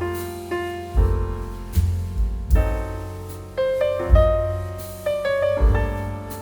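Background music led by piano: single notes and chords struck about once or twice a second, each dying away, over a low bass line.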